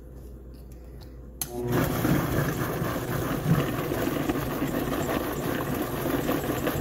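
Vitamix blender switched on about a second and a half in, its motor coming up to speed within half a second and then running steadily at high speed, churning chili and a whole tomato into a thick purée.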